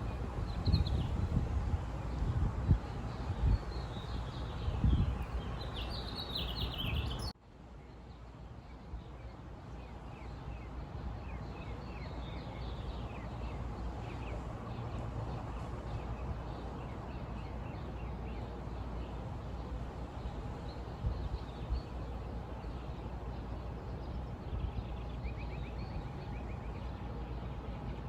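Outdoor nature ambience: birds chirping and twittering over a steady background hiss. Low rumbles sound through the first seven seconds, then an abrupt cut leads to a steadier, quieter stretch with fainter chirps.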